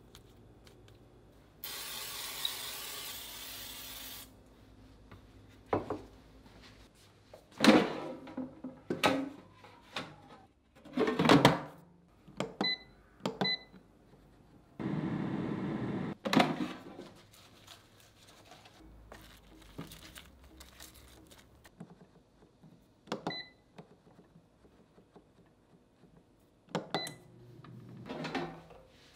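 Kitchen work sounds: a hiss of about two and a half seconds near the start and a shorter one midway, sharp clatters and knocks throughout, and four short electronic beeps like an appliance's control-panel buttons.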